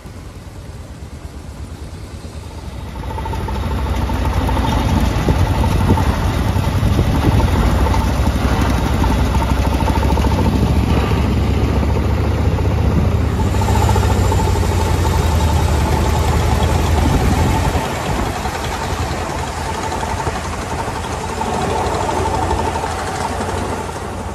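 A vehicle engine running steadily with a low rumble, growing louder about three seconds in.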